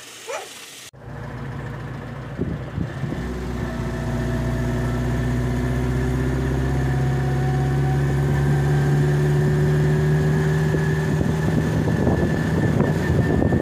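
Renault Trafic van's engine running as the van drives along, a steady hum that grows slowly louder; it starts suddenly about a second in.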